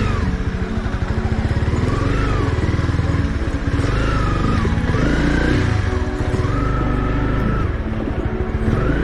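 Honda CB300's single-cylinder engine running as the bike is ridden, its pitch rising and falling every second or two as the throttle is opened and eased.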